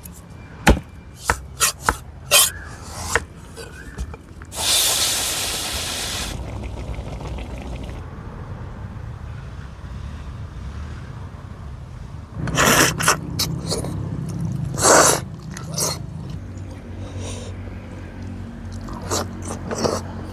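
Cooking sounds: a cleaver striking and scraping a barracuda on a wooden chopping board in sharp clicks and knocks, then a hiss lasting under two seconds, followed by more scattered clattering and knocks.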